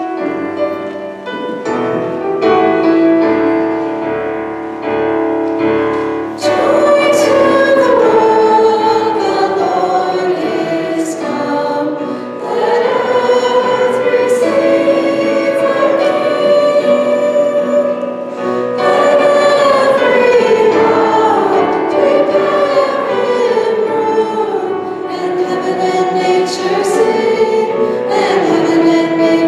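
Three women singing a song with instrumental accompaniment. The accompaniment opens with held chords, and the voices come in about six seconds in.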